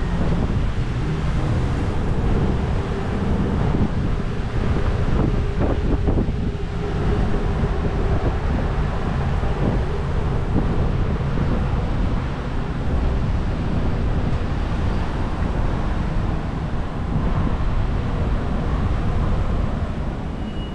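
Wind buffeting the microphone of a camera on a moving bicycle: a steady, loud rumbling rush with traffic noise mixed in.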